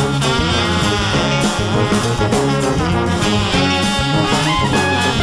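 Background music in a swing-jazz style with brass horns, playing steadily.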